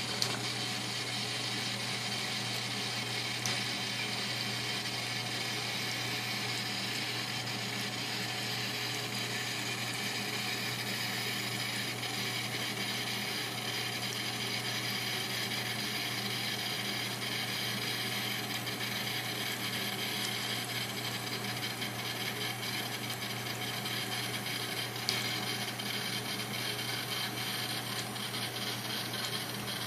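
Thin stream of tap water running steadily into a bathroom sink with a steady hiss, while a cat laps at the falling stream with quick, light tongue clicks.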